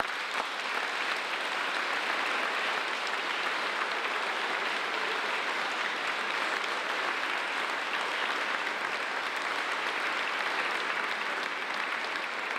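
Congregation applauding: steady, even clapping from many hands.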